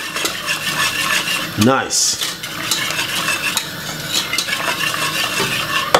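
Wire whisk stirring cornmeal porridge in a metal saucepan: a continuous swish of the liquid with many quick, light clinks of the whisk wires against the pot.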